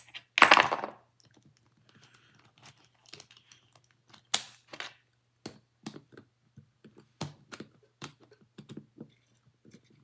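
Irregular small plastic clicks and taps from a screwdriver turning the centre screw out of a cheap Rubik's-type puzzle cube and the cube's pieces shifting in the hand, with a louder scrape about half a second in. A faint steady low hum runs underneath.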